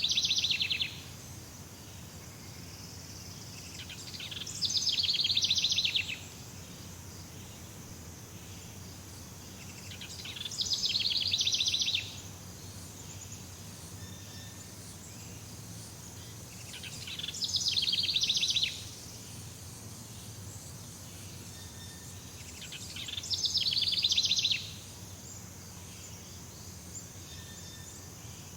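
Jungle ambience: a buzzy, rapidly pulsed animal call repeats about every six seconds. Each call lasts about a second and a half, swells in loudness and cuts off sharply, over a steady low background hum.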